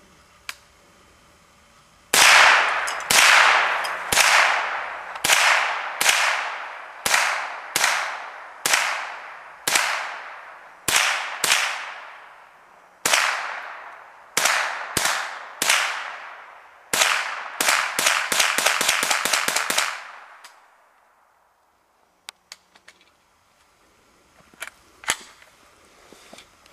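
A rifle is fired at targets: about fifteen shots roughly a second apart, each ringing out, then a rapid string of about a dozen shots in under three seconds. A few faint clicks follow.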